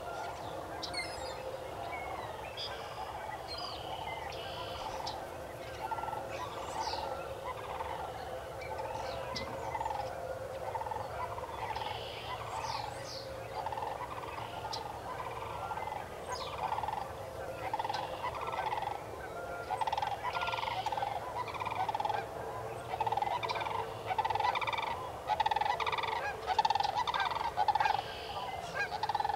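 A flock of waterfowl calling over and over in short honk-like calls, coming thicker and louder in the second half. Small birds chirp higher up among them.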